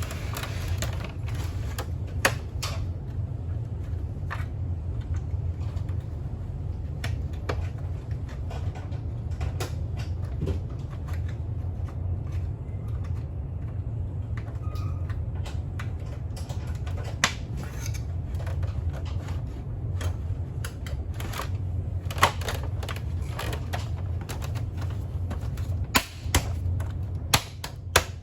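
Irregular sharp clicks and knocks of hand work on parts, with a cluster of louder ones near the end, over a steady low hum.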